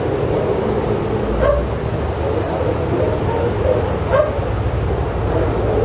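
Dogs barking and yipping together in a continuous chorus, with two sharper yelps standing out, about one and a half and four seconds in.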